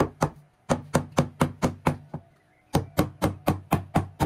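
A mallet tapping a large porcelain paving tile down to bed it level. The sharp knocks come at about four a second in quick runs, with two short pauses.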